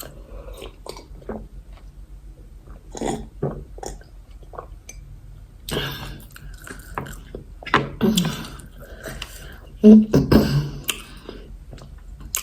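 Close-miked mouth sounds of eating yam fufu with egusi soup: scattered chewing and wet smacking. Louder throaty vocal noises come about eight and ten seconds in.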